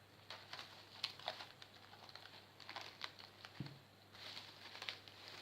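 Plastic cling film crinkling and rustling faintly as it is stretched over a container, with scattered light crackles and taps.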